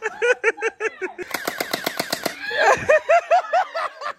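Electric gel bead blaster firing full-auto, a rapid string of sharp shots at about eight or nine a second.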